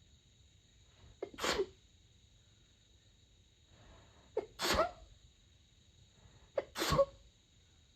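A woman sneezing three times, about two and a half seconds apart, each a quick catch of breath and then the sneeze. The sneezes are stifled and covered with a light blanket to keep them quiet, part of a long sneezing fit.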